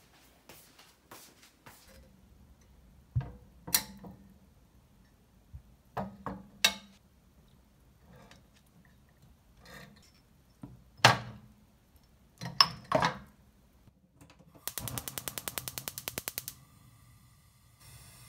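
Glass jars, glass clamp lids and their wire bails clinking and clacking as they are set down one by one in a metal frying pan, a handful of sharp knocks. Near the end comes a rapid, even run of clicks lasting about two seconds, the gas stove's igniter sparking.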